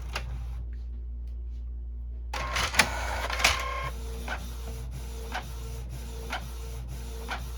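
Canon inkjet printer starting a print job: a whirr with a couple of clacks a little over two seconds in as it takes up the sheet, then the steady rhythm of printing, short mechanical pulses about twice a second with a click about once a second. It is feeding paper normally again after having refused to.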